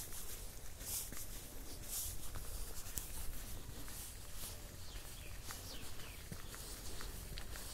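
Footsteps crunching on a dirt path strewn with dry leaves, about one step a second and louder in the first couple of seconds, then softer. Faint bird chirps come in around the middle.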